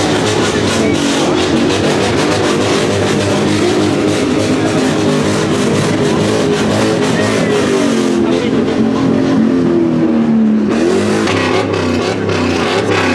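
Car engine running loud, its pitch sinking for a couple of seconds near the end before picking up again.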